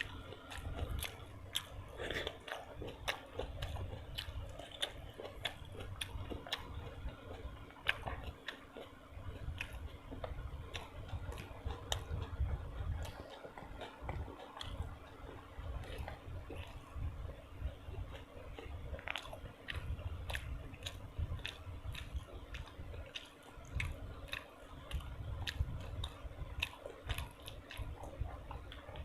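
A person chewing and biting food close to the microphone: steady chewing with many small wet mouth clicks and the odd crunch.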